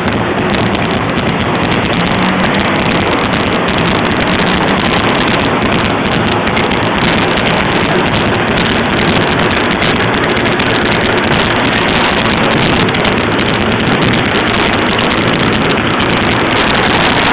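Harley-Davidson FLSTS Heritage Springer's 1340cc Evolution V-twin engine running steadily at an even level.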